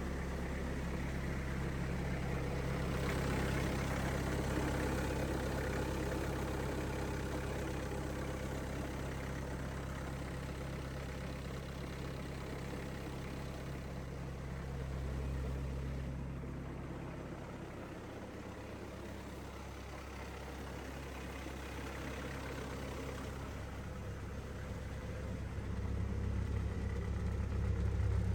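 Bobcat 763 skid steer's diesel engine running at idle just after starting. Its note shifts about two-thirds of the way through and gets louder near the end.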